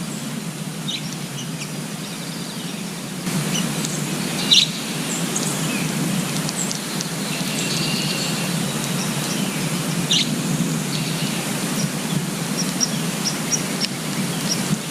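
Small birds chirping in short scattered calls over a steady rushing background noise, which gets louder about three seconds in.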